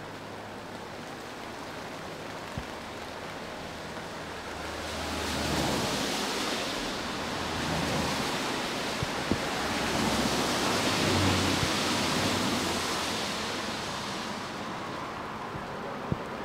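Mainline steam locomotive working hard at the head of a passenger train, heard at a distance. Its exhaust swells into a broad roar about a third of the way in, then eases off near the end, over a steady hiss of rain.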